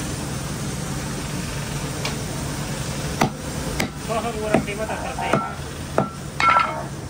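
About half a dozen sharp knocks and clanks over three seconds, starting about three seconds in, the last few with a short metallic ring, over a steady background hum.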